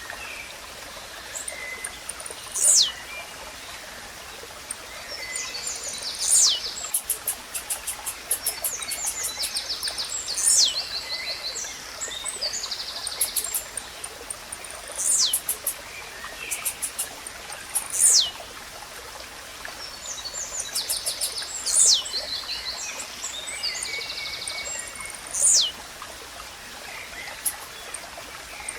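Blue-black grassquit singing: a short, high, sharply falling note repeated about every three and a half to four seconds, seven times. Other small birds chirp in buzzy runs between the songs over the steady trickle of a stream.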